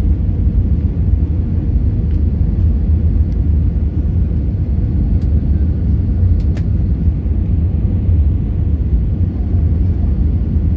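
Steady low rumble of jet airliner cabin noise, engines and airflow heard from inside the cabin, during the descent on approach to landing.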